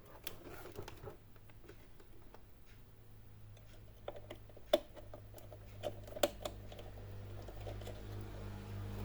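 Scattered light clicks and taps of small computer parts being handled and fitted inside an all-in-one PC, with two sharper clicks about five and six seconds in, over a low steady hum.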